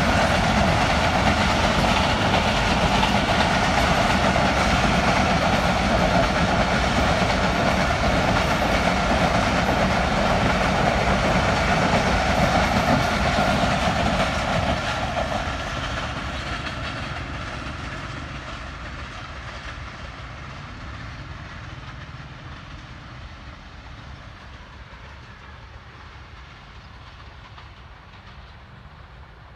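Passenger coaches of a diesel-hauled express train passing at speed, wheels running on the rails, loud and steady for about the first half. Then it fades gradually as the train moves away.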